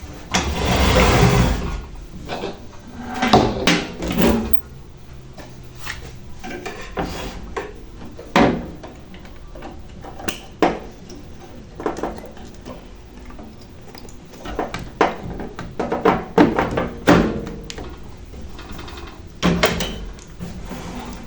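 Irregular knocks, clicks and rattles of parts and tools being handled on a workbench, with a longer scraping clatter about half a second in.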